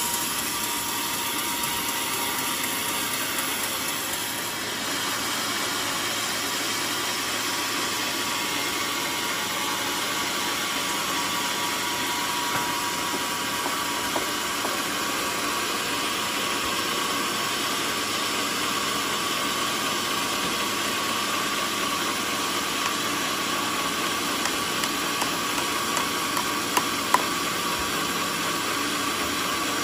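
Band sawmill cutting through a mahogany log: steady saw and motor noise with a thin high whine throughout. Two sharp clicks near the end.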